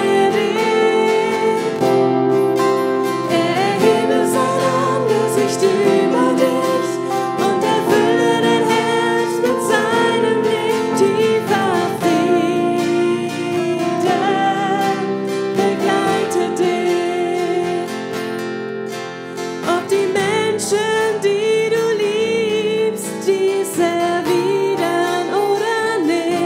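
A woman singing a German worship song into a microphone, accompanied by two acoustic guitars.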